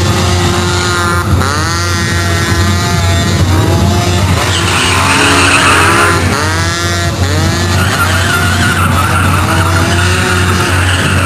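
Vehicle engines revved hard, the pitch sweeping up and down twice, with stretches of tyre squeal over a constant deep low hum.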